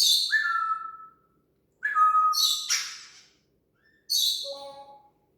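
African grey parrot vocalizing in three separate bursts. Each burst is a harsh, hissy squawk mixed with short whistled notes, and the first ends in a falling whistle.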